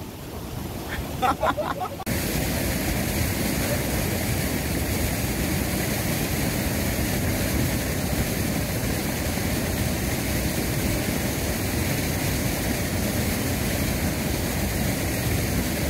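Steady rush of surf washing over a shore at the water's edge, starting abruptly about two seconds in.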